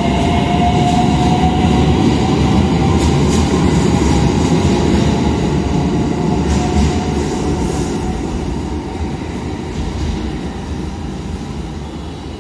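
IR Ishikawa Railway 521-series electric train pulling away along the platform: low rumble of wheels on rail with a whine that rises in pitch, the sound slowly fading as the train moves off.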